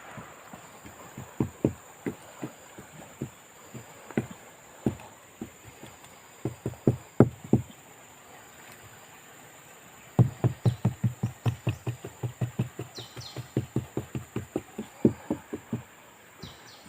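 Repeated tapping and knocking during fiberglass repair of a boat hull. Scattered taps come first, then from about ten seconds a fast, even run of about five taps a second that lasts some six seconds.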